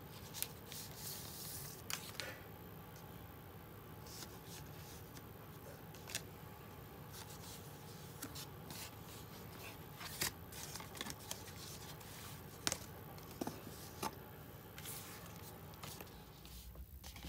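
Faint handling of a card photo frame in a clear plastic sleeve: soft rustling and crinkling of plastic and paper, with scattered light clicks and taps.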